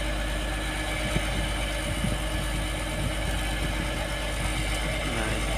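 A large diesel engine idling steadily.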